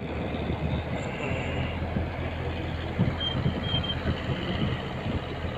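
Small wooden boat's engine running steadily while the boat is under way, a constant low hum under the wash of moving water.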